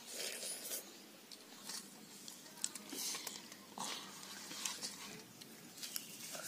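Eating by hand: fingers mixing rice and fish curry on steel plates, with soft chewing and scattered small clicks and scrapes.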